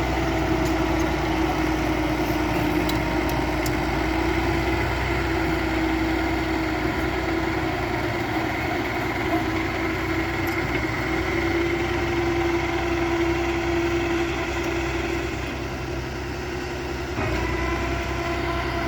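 Bulldozer's diesel engine running steadily. Its level sags slightly, then picks up again with a change in note near the end.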